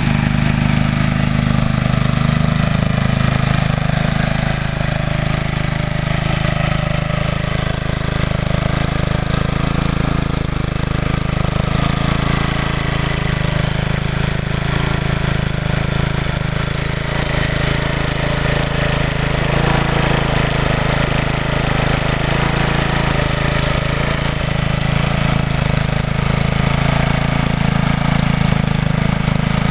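3.75 horsepower Briggs & Stratton Sprint engine on a DR trimmer mower, a single-cylinder four-stroke, running steadily just after a cold start.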